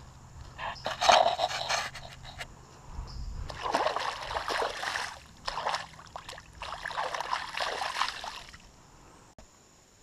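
Shallow river water splashing and sloshing in several short bursts as a hand dips and moves in it at the edge of a muddy bank.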